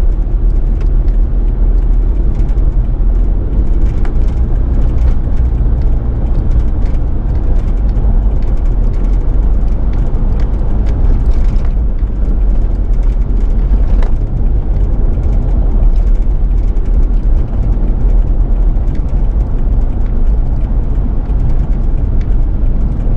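Steady road noise of a moving car heard from inside the cabin: a continuous low engine-and-tyre rumble with a few faint ticks.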